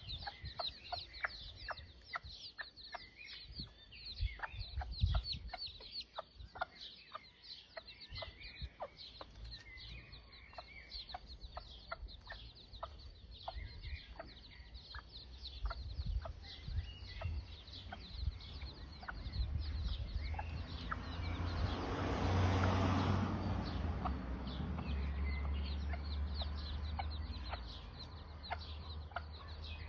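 Chicks peeping constantly in rapid, high cheeps while the mother hen clucks among them. Around two-thirds of the way through, a rushing noise swells up and then eases off under the peeping.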